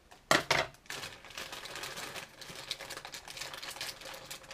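A plastic bag of Vimto chewy bonbon sweets being torn open and handled: two sharp rips just after the start, then steady crinkling of the plastic.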